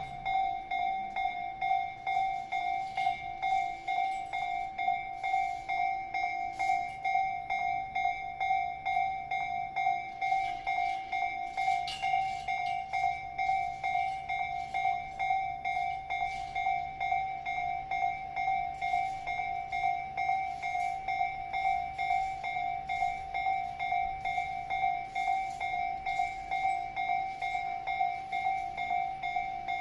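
Electronic warning bell of a Japanese railway level crossing dinging steadily, about two dings a second. A train runs through, heard faintly under the bells from about ten seconds in.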